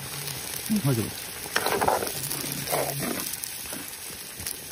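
Hot water poured into a wok of simmering duck and ash-gourd curry, hissing and sizzling as it meets the hot gravy, then stirred with a ladle. A few short voice-like sounds come over it in the first seconds.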